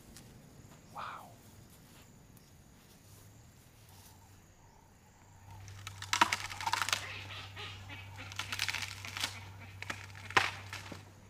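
African elephant tearing up grass with its trunk: rustling and ripping that starts about halfway, with sharp snaps twice, over a low steady hum.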